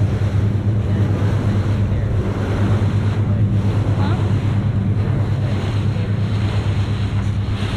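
Pontoon boat's engine running with a steady low drone while the boat is under way, with water rushing past and wind buffeting the microphone.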